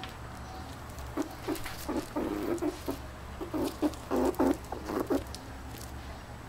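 A female pet squirrel in heat making a quick series of short calls. They start about a second in, are loudest around four seconds in, and stop just after five seconds.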